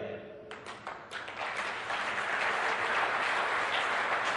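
Audience applause: a few scattered claps about half a second in, quickly filling out into steady applause from a large crowd.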